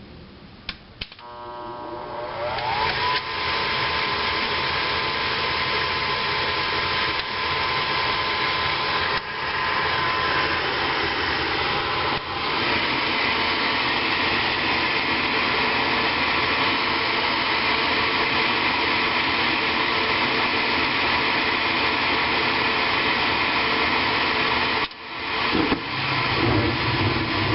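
A 2007 Whirlpool gas furnace starting its heat cycle: a couple of clicks, then the draft inducer motor spins up with a rising whine and runs with a steady whir. Near the end the sound dips briefly and a deeper rumble comes in as the burners light.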